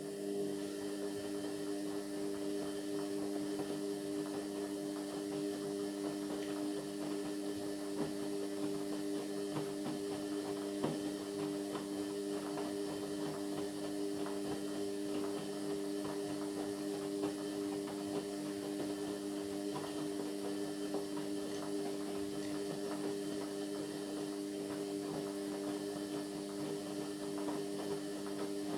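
Indesit MyTime washing machine running mid-cycle with a steady electrical hum and a light crackle of water and laundry. The hum switches on suddenly and cuts off suddenly about 29 seconds later.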